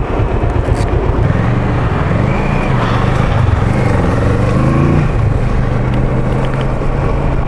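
Motorcycle engine running under a steady rush of wind and road noise. Its pitch rises and falls for the first few seconds, then holds steady.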